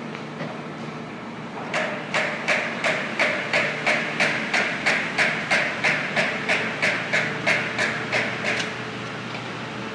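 Caterpillar stand-up rider forklift driving, its travel alarm beeping about three times a second for some seven seconds over a steady low hum.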